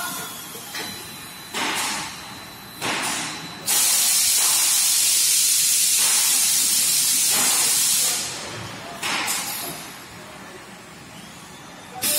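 A fiber laser tube cutting machine at work, hissing with compressed air: several short hisses and one steady hiss of about four seconds in the middle, with quieter running noise between them.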